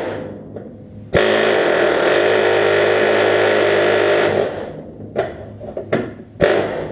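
Pneumatic air chisel hammering at a stuck lower door-hinge pin: one long burst of about three seconds starting about a second in, then a few short bursts near the end.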